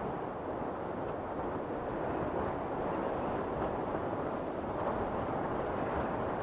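Steady, even rush of wind and ocean surf, with no distinct events.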